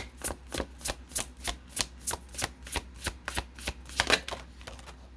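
A deck of tarot cards being shuffled by hand: a quick, even run of card slaps at about four a second that thins out near the end.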